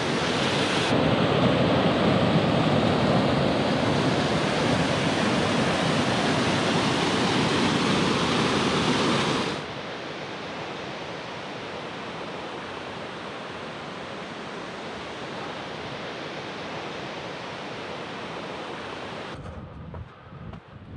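Mountain creek rushing over rocks, a loud steady rush of white water. About ten seconds in it cuts off abruptly, leaving a much fainter steady hiss.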